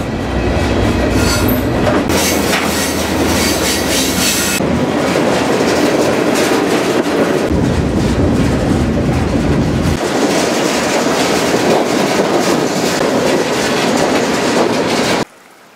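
Loud running noise of a moving freight train heard from aboard a freight car: steel wheels clattering over the rails and the car body rattling and rumbling. It cuts off suddenly near the end.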